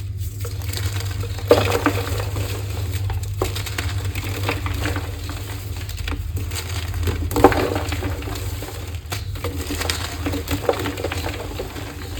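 Block of AGI gym chalk being crushed and squeezed, giving irregular squeaky crunches, sharpest about a second and a half in and again after seven seconds, over a steady low hum.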